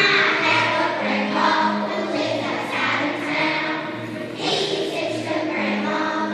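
A choir singing with instrumental accompaniment, a low note repeating about twice a second under the voices.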